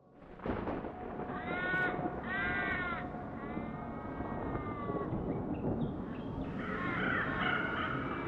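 Crows cawing in a spooky sound-effect mix: a few drawn-out caws in the first five seconds, then several overlapping caws near the end, over a steady low rumble like wind.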